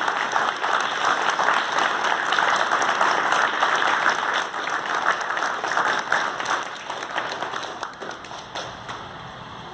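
Audience applauding, dense clapping that thins out and dies away about eight seconds in.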